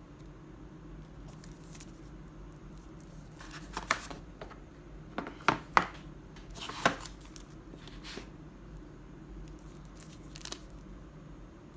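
Handling noises: a few short rustles and sharp clicks, the loudest in the middle, over a low steady hum.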